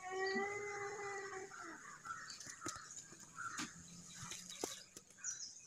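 An animal calls once in one long, slightly falling note lasting under two seconds, then a few sharp clicks follow over a faint, steady high tone.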